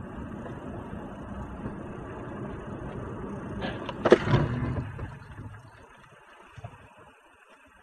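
Car engine and road noise in slow city traffic, heard from inside the car. About four seconds in come two sharp knocks, the second a louder bang, and then the noise dies down.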